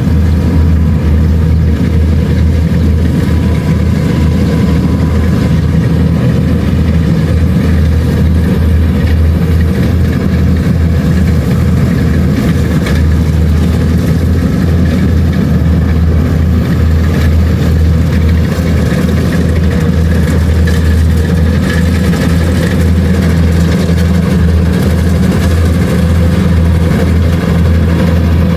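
Kubota DC-70 Plus combine harvester's diesel engine running steadily while it harvests rice, a loud constant drone without changes in speed.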